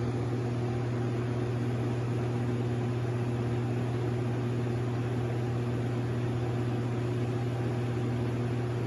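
Air conditioner unit running with a steady low electrical hum over an even fan hiss; the owner cannot say what the noise is and fears something is wrong with the unit.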